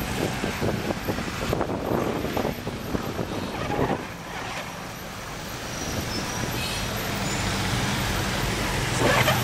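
Road traffic heard from inside a moving vehicle: engine and road noise. A steady low engine hum comes in about two-thirds of the way through.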